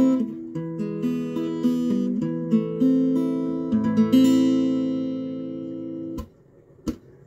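Acoustic guitar strumming chords as the intro to a song. The last chord rings out and is cut off about six seconds in, followed by a single sharp tap.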